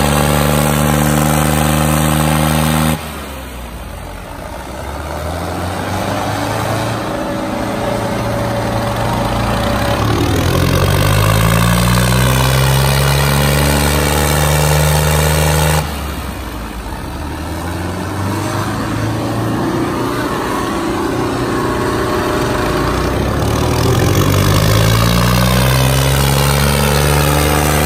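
Diesel tractor engines, a Ford 3600 and a Sonalika 60, revving hard under full load as they pull against each other in a tug-of-war. The engine pitch climbs three times, with the sound dropping abruptly about three seconds in and again around sixteen seconds.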